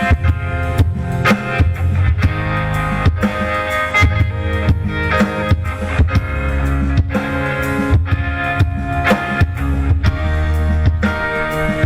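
Live band playing an instrumental passage: guitar chords over a strong bass line and a drum kit keeping a steady beat.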